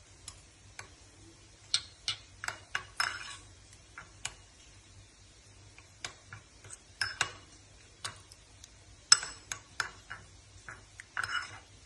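Metal spoon clinking and scraping against a ceramic bowl while stirring spices into curd, in irregular taps and short scrapes. The sharpest clink comes about three-quarters of the way through, and there is a longer scrape near the end.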